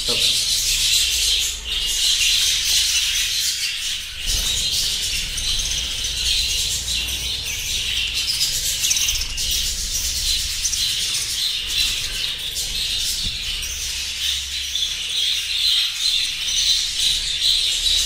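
A flock of budgerigars chattering and chirping all at once, a dense, unbroken high-pitched twittering of many birds.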